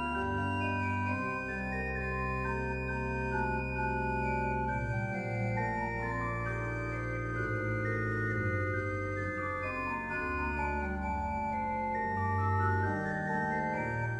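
1961 Karl Schuke pipe organ playing slow polyphonic music: held chords and moving upper lines over low pedal bass notes that change every few seconds.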